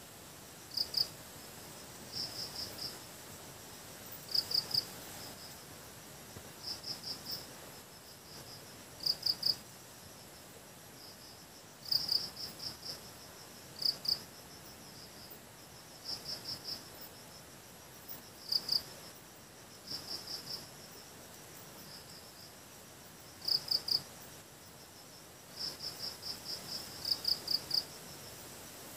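Insect chirping: short trains of two to five chirps at one high, unchanging pitch, repeating every second or two over a faint steady hiss.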